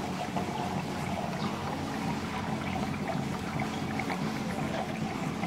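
Water running steadily into a model lift lock's chamber as it fills, over a low steady hum.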